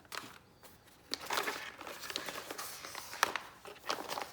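Packaging rustling and crinkling in irregular bursts with scattered light taps and clicks, as the foam pieces of a keyboard kit are unpacked by hand.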